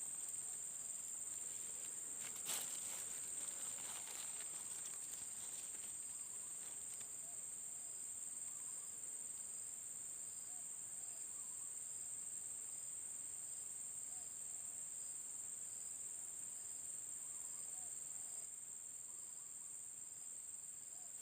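Steady, high-pitched drone of insects in the surrounding vegetation, one unbroken shrill tone. A brief sharp click about two and a half seconds in.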